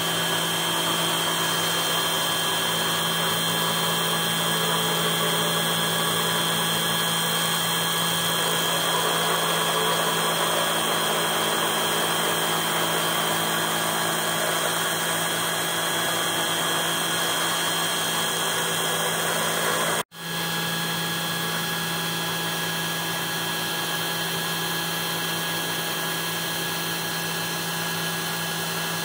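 Desktop CNC engraver (Chinese 1310) spindle running steadily, its end mill cutting a metal plate: a constant machine whine over cutting noise. It breaks off for an instant about two-thirds of the way in and carries on.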